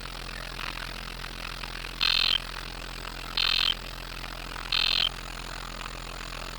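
Emergency Alert System end-of-message data burst: three short, identical warbling data-tone bursts about 1.4 seconds apart, each about a third of a second long, over a steady background hiss.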